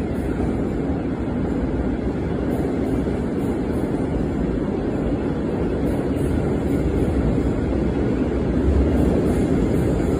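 Koleje Mazowieckie double-deck regional train pulling out of the station on the far track, a steady low rumble of wheels and running gear that grows slightly louder as the carriages roll past.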